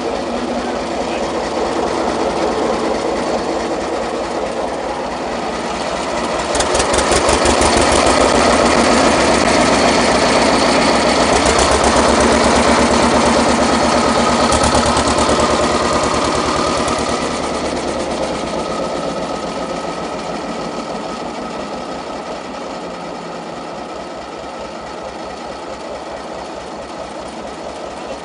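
1944 Zettelmeyer road roller's Deutz diesel engine running with a steady rapid beat of firing strokes. It grows louder about six seconds in, holds, then eases off and gets quieter over the second half.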